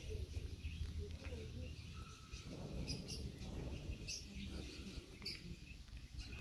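Outdoor birds chirping faintly in the trees, a few short high calls scattered through, over a steady low rumble.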